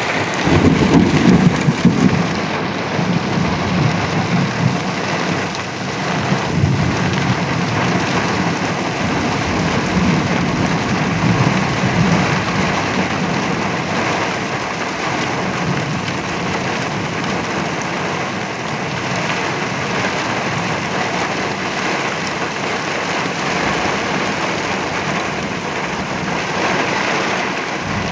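Heavy rain pouring steadily in a severe thunderstorm, with low rumbles of thunder that are loudest in the first couple of seconds and swell again a few times.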